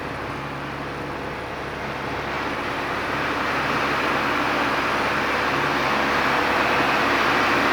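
Light single-engine piston airplane heard from inside the cockpit in cruise: a steady engine and propeller drone with a rush of air noise, growing louder from about two seconds in.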